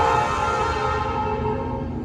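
Locomotive air horn sounding a long blast, a chord of several steady tones, cutting off near the end and starting again just after, over a low rumble.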